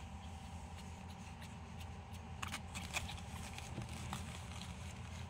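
Faint rustling of a quilted disposable puppy pad as a newborn puppy is set down and crawls on it, with a few sharp crinkles about two and a half to three seconds in, over a steady low hum.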